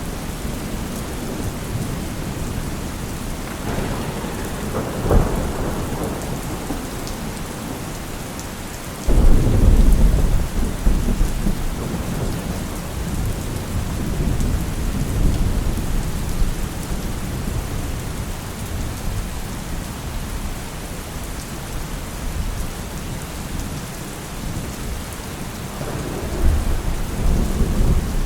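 Heavy rain falling steadily with thunder: a rumble about four seconds in, a sudden loud thunderclap about nine seconds in that rumbles on for several seconds, and another rumble near the end.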